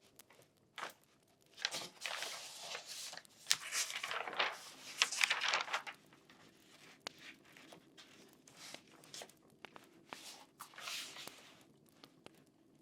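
Paper rustling in two long bursts in the first half and a shorter one near the end, as pages are handled and turned, with scattered light ticks in between.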